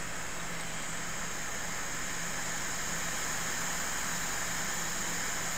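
Steady fan-like hiss with a low hum from running microsoldering bench equipment.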